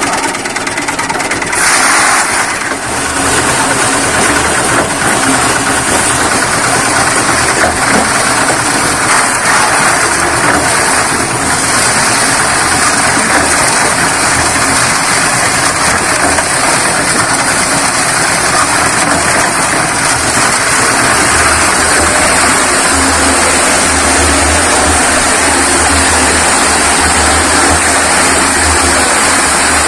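Diesel-driven drum concrete mixer running steadily, its engine working as the drum mixes sand, stone and cement, with a heavier low rumble in the last several seconds.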